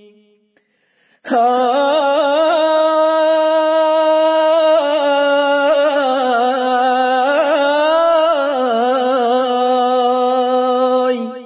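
A single unaccompanied voice singing one long, held Kurdish vocal line with wavering, ornamented pitch. It starts about a second in after a brief silence and fades out near the end.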